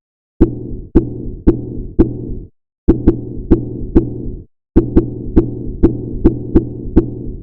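A percussion hit made in Ableton Live from a sliced noise sample (a grass cutter recording), run through a low-pass filter with high resonance and transposed down, played over and over. Each hit is a sharp click followed by a low, ringing pitched tone that fades. The hits come in quick groups of about two to three a second, with short pauses between the groups.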